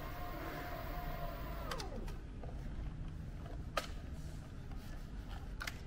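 Mankeel W7 electric sea scooter's twin thruster motors spinning in air with a steady whine that falls away about two seconds in as they stop. A couple of sharp clicks follow as the plastic scooter is handled.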